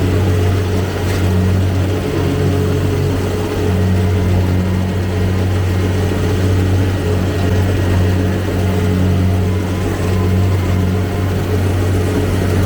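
Kubota DC-70 combine harvester's diesel engine running steadily under load, a constant deep hum with no change in speed.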